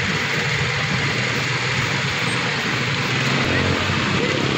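Cotton candy machine running, its spinning head giving a steady hum under an even hiss.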